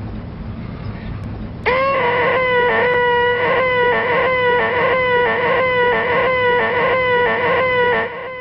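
A man's voice holding a loud, high, nasal 'eeeeh' whine (the 'most annoying sound in the world'). It starts about two seconds in, wavers a couple of times a second, and breaks off near the end, over a low steady hum.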